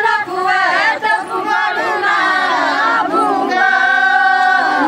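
A group of women singing a Pahari folk song together in unison, their voices overlapping, ending on a long held note.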